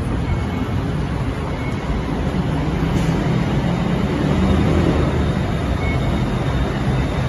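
Steady low rumble of busy city street traffic, with no distinct events.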